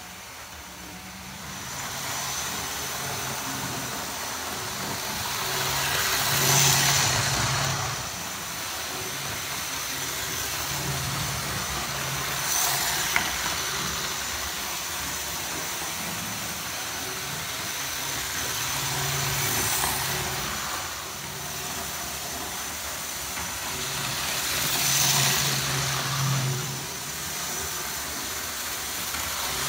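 Hornby APT OO-gauge model train running around a loop of sectional track: a steady electric motor hum and wheel rumble. It swells four times, about every six seconds, as the train passes close by.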